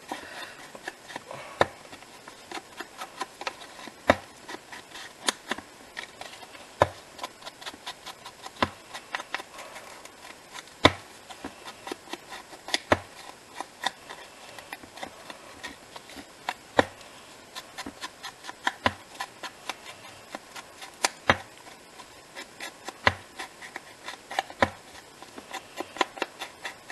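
Ink blending tool being tapped on a black ink pad and dabbed along the edges of paper pieces: a run of light, irregular knocks with soft rubbing between them.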